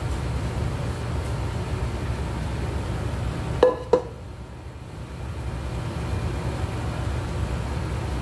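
Steady low rumble in a kitchen, with two quick ringing metallic clinks of cookware about four seconds in.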